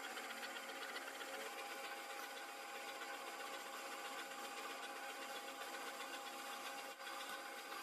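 A machine tool running steadily with a constant whine of several tones and a brief drop in level about seven seconds in.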